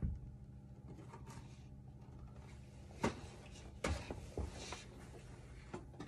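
A few short clicks and light knocks as tools and items are handled and picked up, over a steady low hum.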